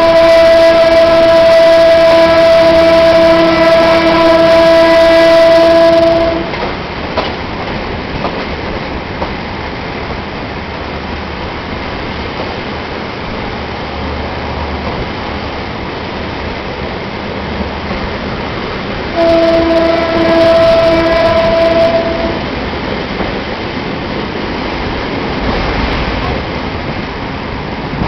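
Train horn sounding a long steady blast that ends about six seconds in, then the train running along the track. A second, shorter horn blast of about three seconds comes about two-thirds of the way through. Heard from aboard the train.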